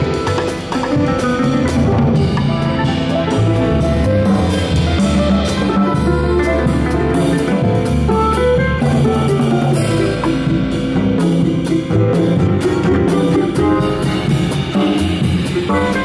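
Small Brazilian jazz ensemble playing a bolero: a ten-string bandolim is picked over piano and bass, and a drum kit plays with sticks on toms and cymbals.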